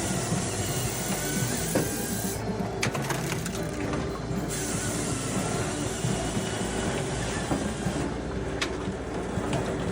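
Heavy machinery running: a steady mechanical drone over a dense rumble, with scattered sharp knocks and clatter.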